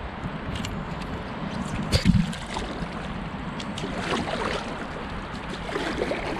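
Canoe being paddled through calm river water, with steady splashing and swishing from the paddle strokes. A single thump about two seconds in stands out, and a few light clicks and drips follow.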